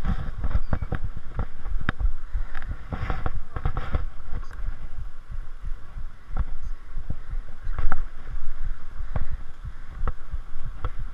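Irregular close knocks, low thumps and rustles from a mountain bike and its action camera being handled and jostled as the rider comes to a stop at the end of an enduro stage, with short breathy puffs in places.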